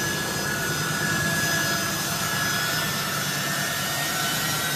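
Turbofan jet engines of a U.S. Air Force C-17 transport running as it taxis, a steady rushing noise with a high, steady whine.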